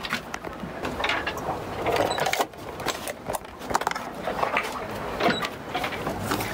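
Handling noise: a run of irregular clicks, knocks and rustles as a handheld camera is moved about on a yacht's teak deck.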